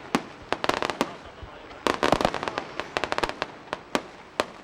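Fireworks bursting overhead: rapid volleys of sharp cracks and bangs. One cluster comes about half a second in, and a longer crackling run from about two seconds in, with single bangs between.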